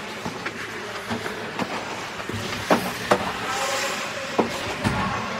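Ice-rink ambience: a steady scraping hiss of skates on the ice, broken by several sharp clacks of hockey sticks and puck, the loudest two coming close together about halfway through.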